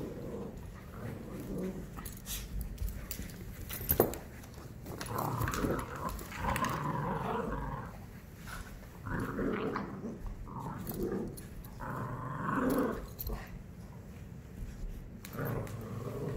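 Dogs growling in play during a tug-of-war over a plush toy, in several spells of a second or two each. A single sharp knock comes about four seconds in.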